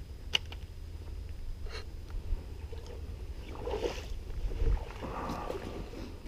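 Water sloshing and splashing in two short spells, over a low wind rumble on the microphone, with a single click near the start.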